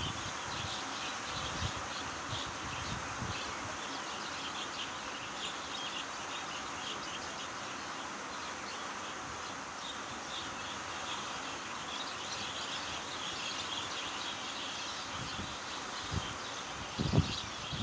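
Outdoor nature ambience: a steady rain-like hiss under dense, rapid high-pitched chirping. A few low thumps come near the end.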